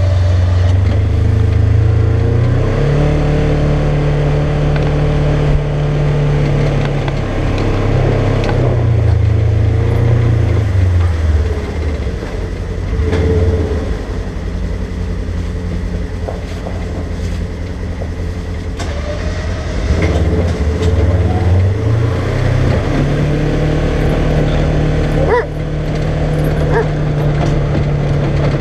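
Polaris General XP side-by-side's engine running under load while plowing snow. The engine revs up about three seconds in, settles back down around ten seconds, and revs up again near the end. A few short clicks come near the end.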